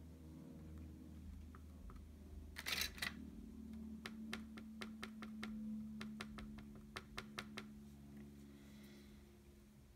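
Cotton swab dabbing watercolour paint onto a canvas board: a quick run of light taps, several a second, over about three and a half seconds. A brief scratchy rub comes a little before the taps.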